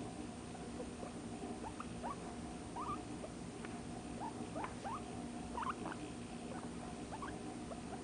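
Guinea pig giving about a dozen short, high, rising squeaks while being stroked, thickest in the middle seconds, over a low steady hum. The owner thinks the sounds mean it is content.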